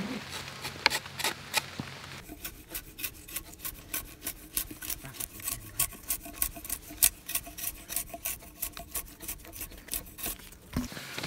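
Drawknife shaving bark and wood off a log to square it: a run of quick scraping strokes, a few a second.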